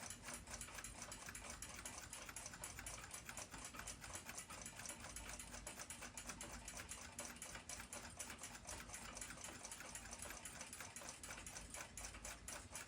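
Seikosha ship's clock movement ticking faintly and rapidly, about five even ticks a second, while its balance wheel runs out of true, a wobble that means it won't keep good time.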